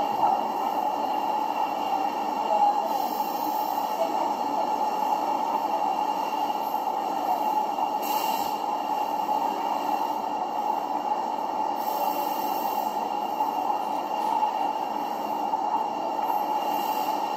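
Steady, unbroken mechanical background noise, an even rushing hum with no pauses or distinct events.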